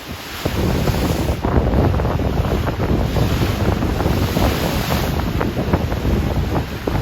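Rough Atlantic Ocean waves crossing and breaking in a continuous rushing wash, with wind buffeting the microphone. The sound dips briefly at the start, then swells back.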